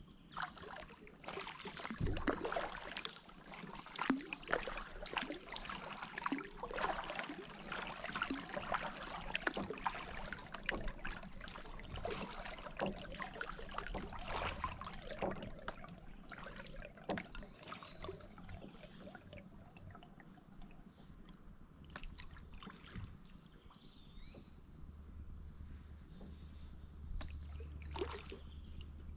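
Kayak paddle strokes in a calm, shallow river: the blades dip, splash and drip water in a busy crackle that thins out after about halfway. A bird chirps a few times near the end.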